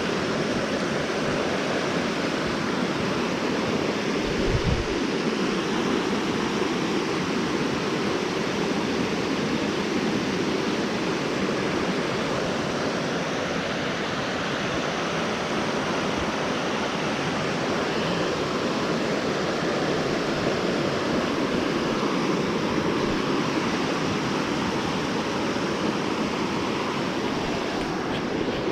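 River water rushing steadily, with one brief low thump about four and a half seconds in.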